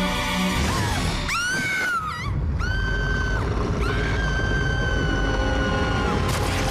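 A woman's scream, a high cry that rises and falls about a second in, over dramatic cartoon music, followed by long held high tones.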